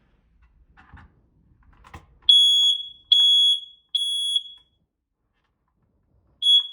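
Smoke alarm sounding its test: three loud, high-pitched beeps of about half a second each in quick succession, a pause, then a fourth beep beginning the next round. This is the temporal-three fire evacuation pattern, and it shows the alarm is working.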